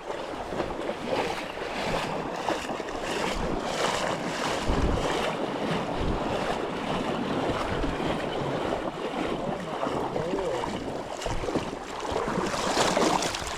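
Steady rush of a mountain trout stream's flowing water, with wind buffeting the microphone in low rumbles.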